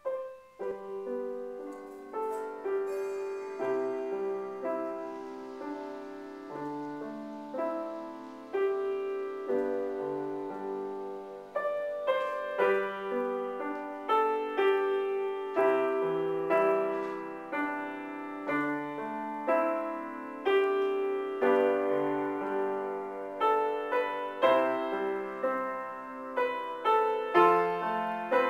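Solo grand piano playing a flowing, melodic piece with sustained, overlapping chords, growing louder about halfway through.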